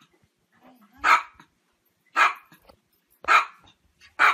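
Small dog barking: four short, sharp barks about a second apart.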